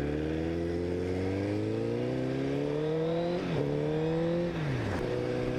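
Honda CBR1000RR's inline-four engine accelerating: its pitch climbs steadily for about three seconds, breaks briefly in a gear change and climbs again, then drops about five seconds in as the throttle closes and settles at a steady lower note.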